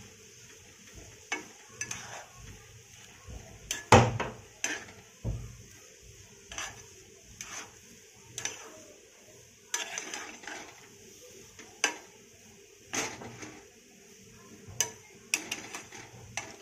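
A spoon or spatula stirring potato bhaji in a kadhai, with irregular scrapes and clinks of metal against the pan and one loud knock about four seconds in.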